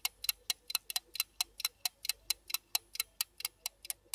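Clock-style ticking sound effect, an even run of sharp ticks at about four or five a second, marking the wait while the first penalty is picked.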